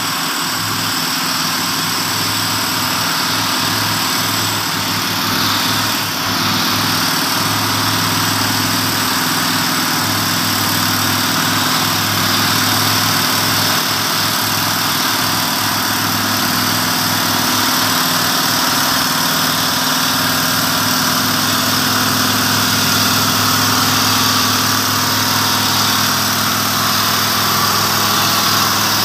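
Heavy diesel logging truck engine running steadily at a low, even pitch, growing a little louder over the stretch.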